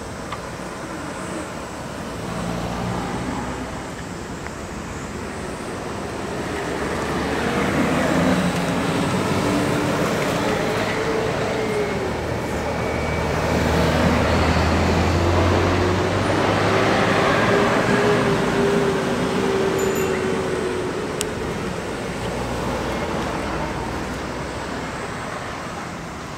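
Road traffic driving past at a level crossing: vehicle engines swell from about a third of the way in, with pitch that rises and falls as they pass. The sound is loudest in the middle and fades toward the end.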